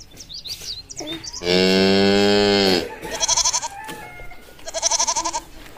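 A cow mooing once, one long low call about a second and a half in, followed by two short, quavering bleats near the end.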